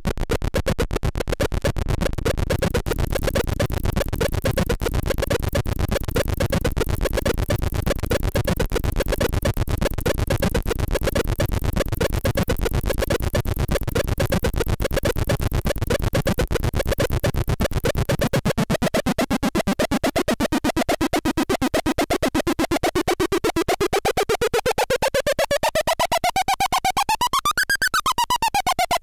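Fort Processor DIY noise-synthesiser circuit, played by hand, putting out harsh noise chopped into rapid stuttering pulses. About two-thirds of the way through, a pitched tone emerges and glides steadily upward, peaking near the end and then dropping back down.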